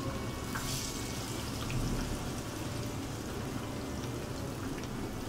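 Chicken and vegetable fritters in gram-flour batter deep-frying in hot oil, with a steady sizzle and bubbling and a brief louder hiss under a second in.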